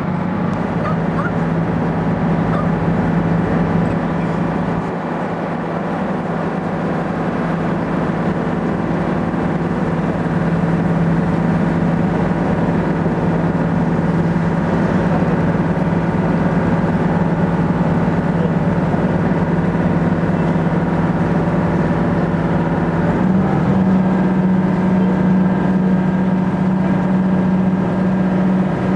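Boat engine running steadily at low speed, a constant drone; about three-quarters of the way through its pitch steps up as the engine speeds up.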